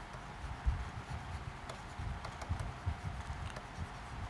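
Stylus writing on a pen tablet: soft, irregular taps and low knocks from the pen strokes.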